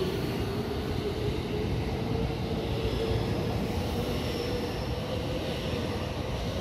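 JR West stainless-steel electric commuter train moving along the station platform: a steady rumble of wheels on rail under the whine of its electric traction motors, with a faint higher tone rising partway through.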